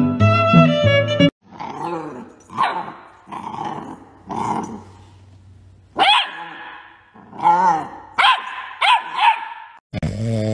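Violin music that stops about a second in, then a puppy giving a run of short, high-pitched yips and barks, spaced about a second apart.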